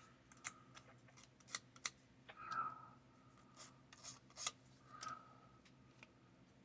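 Faint, scattered sharp clicks and light taps of small laser-cut wooden kit parts being handled, with two brief scratchy rubs partway through.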